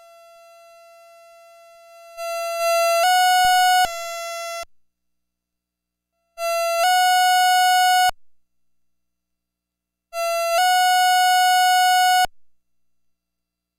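Infernal Noise Machine Desktop (INM-D) analog synthesizer sounding a buzzy, kazoo-like tone rich in overtones. A faint held note opens, then it plays three loud notes about four seconds apart. Each note steps slightly up in pitch about half a second in and cuts off abruptly.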